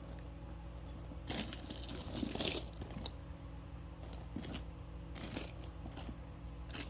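Small metal costume jewelry clinking and rattling as it is picked through and handled, with a longer jangle about a second and a half in and scattered clicks after. A steady low hum sits underneath.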